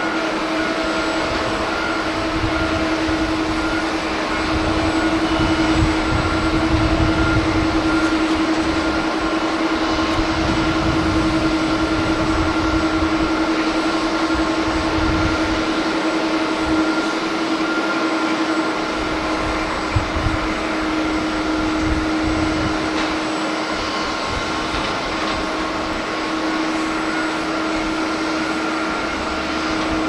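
Boeing 787's jet engines running at taxi power, a steady whine over continuous engine noise, with gusty wind rumbling on the microphone.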